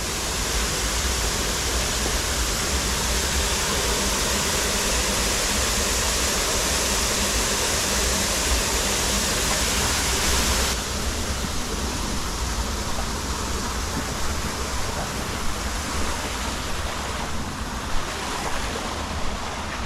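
Steady rush of falling water from a garden water feature. The bright hiss thins noticeably about halfway through.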